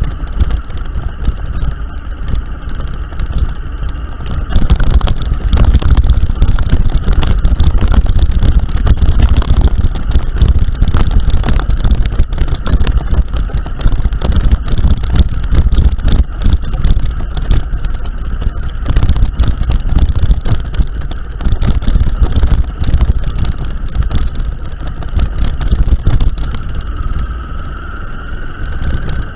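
A vehicle driving over a rough, broken-up road: heavy rumble and jolting with wind buffeting the microphone, over a steady engine whine that climbs slightly near the end. It gets louder about four and a half seconds in.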